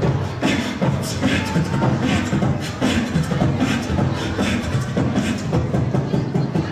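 Beatboxing: a vocal beat with a low kick and a hissing snare-like stroke about every three-quarters of a second.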